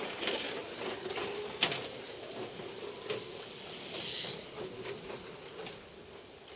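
Tiny electric motors of Kyosho dNaNo 1/32-scale RC cars whining as they run, with a few sharp clicks, the loudest about one and a half seconds in.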